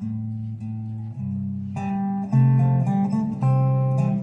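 Instrumental background music on a plucked guitar, one held note after another, getting louder about two seconds in.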